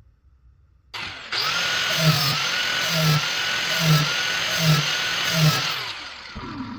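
A handheld 4-1/2 inch angle grinder is switched on about a second in and runs with a steady whine. A regular pulse about once a second marks its strokes across a lawnmower blade, grinding metal off the heavy side to balance the blade. It is switched off near the end and winds down.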